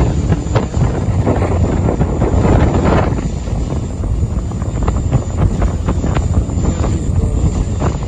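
Wind buffeting the microphone on the deck of a fast-moving boat, over the steady rumble of its engines and the rush of the wake churning along the hull.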